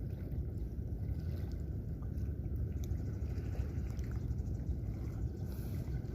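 Steady low rumbling outdoor noise with no clear pitch, with a few faint clicks.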